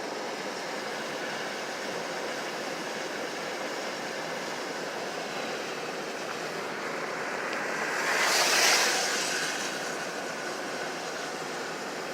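Steady road and tyre noise inside a moving car on winter roads, with a louder hiss that swells and fades over about two seconds, two-thirds of the way through.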